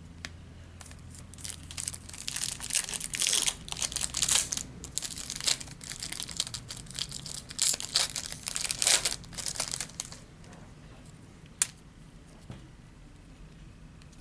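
A trading-card pack's foil wrapper being torn open and crinkled, a dense run of crackling for several seconds, then a single sharp click after it quietens.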